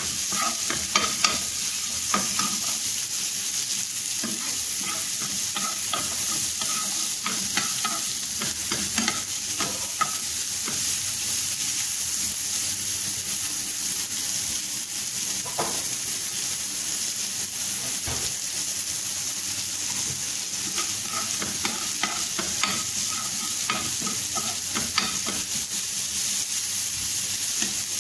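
Chopped red onion sizzling steadily in oil in a frying pan, with a metal spoon stirring and scraping against the pan. The scrapes and clicks come in clusters near the start, about nine seconds in, and again in the last third.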